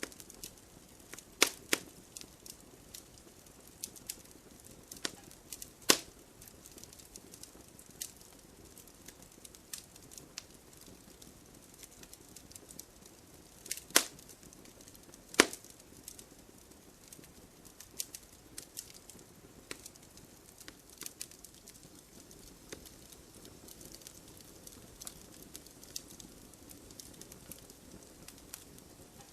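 Wood fire burning in a fireplace: logs crackling and popping at irregular intervals over a soft steady hiss, with a few louder sharp pops.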